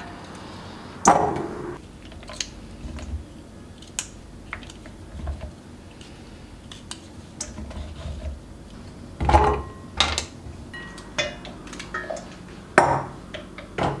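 Small knife trimming the ends off flat green beans over a stainless steel colander: scattered light clicks and taps, with a few louder metallic knocks against the colander, about a second in, twice around nine to ten seconds, and near the end.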